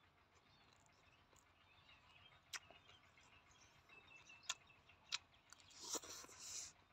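Quiet eating sounds: a few sharp clicks of a spoon against the metal tray, then the noisy slurp and smack of a spoonful being taken into the mouth near the end. Faint bird chirps in the background.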